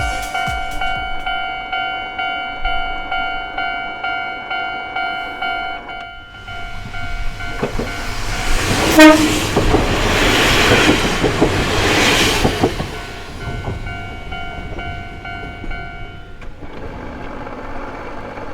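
Level-crossing warning bell ringing in a steady repeating pattern. About seven seconds in, a Kominato Railway diesel train passes with a rising then fading rumble and gives one short horn blast as it reaches the crossing. The bell is heard again as the train moves away.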